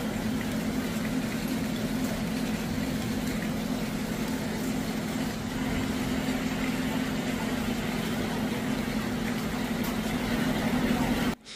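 A steady low mechanical hum under a constant hiss, unchanging throughout and cutting off abruptly just before the end.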